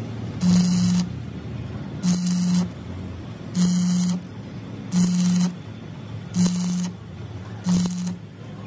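Stick (arc) welding on the broken teeth of a truck differential gear. The arc buzzes and crackles in six short bursts of about half a second each, roughly one every second and a half.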